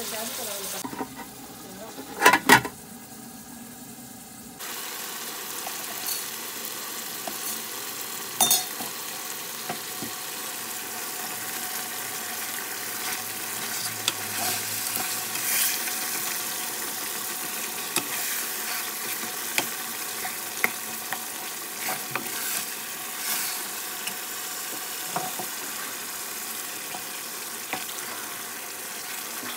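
Tomatoes, green chillies and potatoes sizzling in a metal pot while a metal spoon stirs them, clicking and scraping against the pot. The loudest sounds are two sharp clanks about two and a half seconds in.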